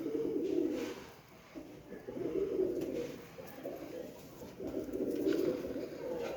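Domestic pigeons cooing: three rolling bouts of low coos, each about a second long, with short pauses between.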